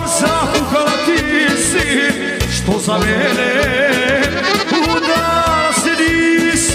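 Live folk band music led by an accordion playing a wavering, ornamented melody over a steady drum beat.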